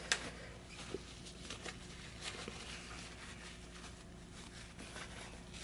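Faint rustling and light scraping of a paper towel wiping excess grease along a brushless motor's rotor, with one sharper click just after the start.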